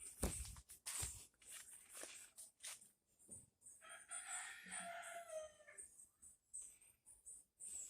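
A rooster crows once, about four seconds in: a single call of nearly two seconds that drops in pitch at the end. Scattered faint clicks and knocks come before and after it.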